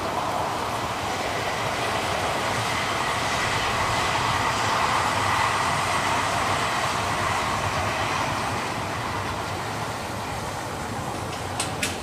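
Odakyu Romancecar train running past at speed: a steady rushing rumble of wheels on rail with a faint steady whine, swelling to its loudest around the middle, then a quick run of clicks near the end as the wheels cross rail joints.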